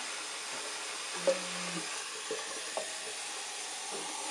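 Steady fizzing hiss of soap suds and water in a bathroom sink around a bathing rabbit. A sharp knock about a second in is followed by a brief low hum.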